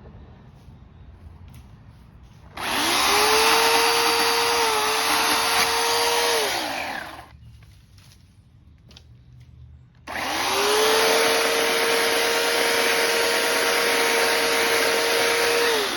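A chainsaw running in two bursts of about four and six seconds, each spinning up quickly to a steady high whine and winding down again, stopping completely between them. The whine dips briefly in the middle of the first burst.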